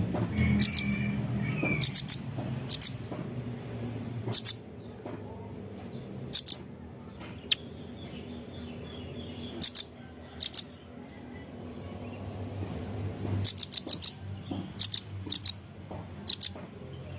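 Velvet-fronted nuthatch calling: short, sharp, very high chips, some single and some in quick runs of three to five, with a faint low hum underneath.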